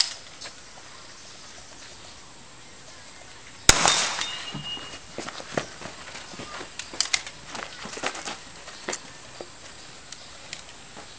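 A loud rifle shot a few seconds in, ringing back off the surrounding walls, after a sharper, quieter crack right at the start. Then scattered small clicks and knocks of the shooter moving and loading the carbine for the next single shot.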